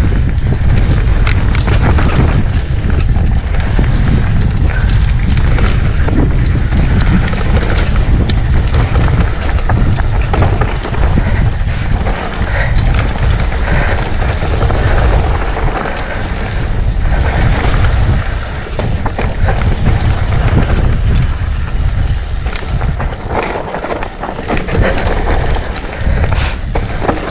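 Wind buffeting the microphone of a camera on a mountain bike descending a dry dirt and rock trail, a loud steady rumble, with the tyres crunching over dirt and stones and the bike rattling.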